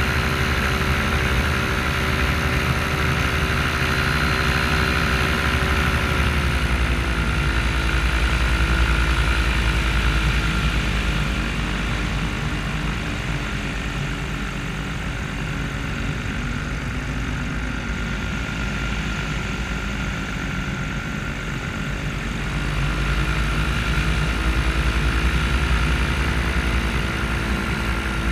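Paramotor engine and propeller running steadily in flight, throttled back about six seconds in and opened up again around twenty-two seconds, with wind rumbling on the microphone.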